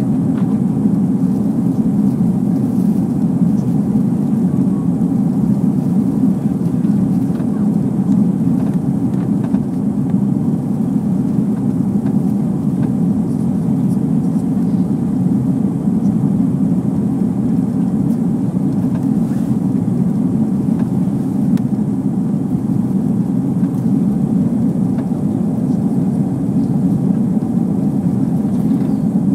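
Steady low jet rumble of an Airbus A340-300's four engines as it climbs away, an even roar with no rise or fall.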